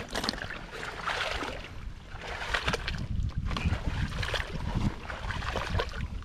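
Water sloshing and splashing in irregular bursts, over a steady low rumble of wind on the microphone.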